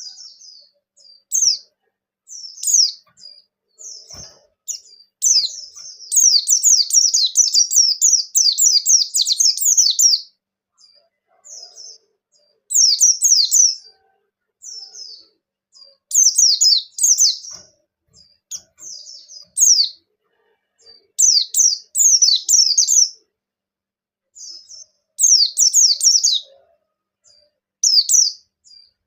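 A pleci (white-eye) singing in fast, high chirping phrases, the longest a dense run of about four seconds, with short pauses between bursts: the bird in full vigorous song ('gacor ngalas').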